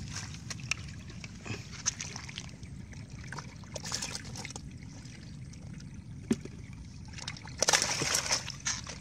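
Water sloshing and splashing as live fish are grabbed by hand from a shallow basket of water and moved into a plastic bucket. There are scattered small splashes, with louder splashing about four seconds in and again near the end.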